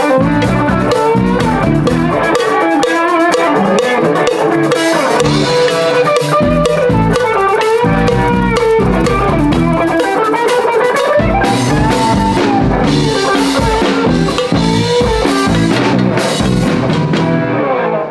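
Live rock band playing, an electric guitar to the fore with a handheld cowbell struck in time and drums beneath, a shaker joining partway through. The music fades out near the end.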